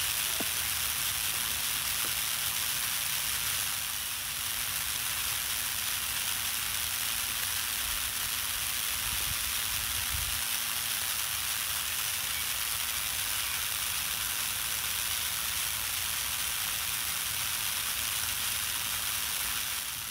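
Rain Jet No. 14 brass full-circle shrub spray sprinkler head running, its fan of water spraying with a steady hiss.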